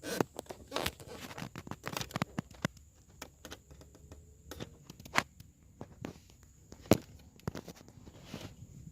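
Irregular plastic clicks, knocks and rattles of hands and tools working at a car's dashboard trim to get at the air-con control panel, with two sharper knocks about five and seven seconds in.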